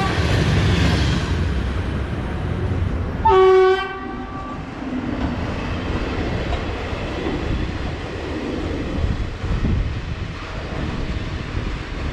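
A train horn sounds one short, loud blast about three seconds in, over the steady rumble of a train running on the line.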